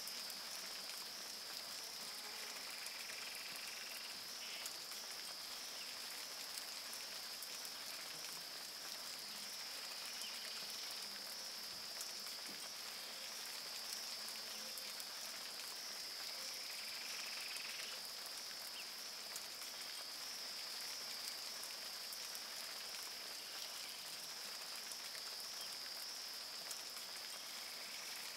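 Steady rain falling on the river and surrounding rainforest, with many fine drop ticks. A continuous high-pitched animal chorus runs underneath, and a few faint short calls come through.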